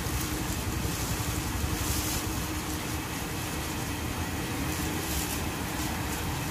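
Steady low rumbling background noise with a faint constant hum, and brief soft rustling about two and five seconds in.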